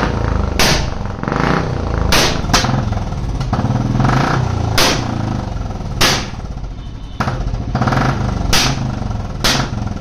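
Royal Enfield Classic 350's single-cylinder engine being blipped through an aftermarket Indori exhaust, its note rising and falling, with loud backfire pops ('pataka') about once a second at irregular intervals.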